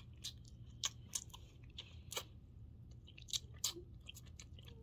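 Faint, irregular wet clicks and crackles of rambutan flesh being worked off its hard seed.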